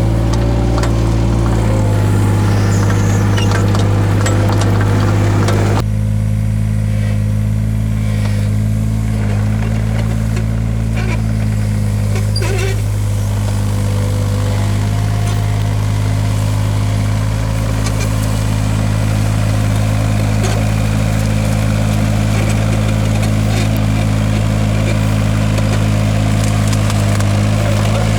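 Takeuchi TB016 mini excavator's diesel engine running steadily. The sound shifts abruptly about six seconds in.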